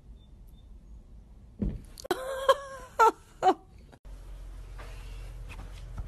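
Four or five short, high-pitched animal cries in quick succession, about a third of the way in. After that comes a steady low hum with a few faint clicks.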